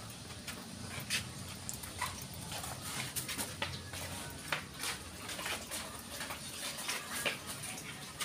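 Footsteps of people walking along a hard alley path: sharp, irregular steps roughly twice a second, over a low steady hum.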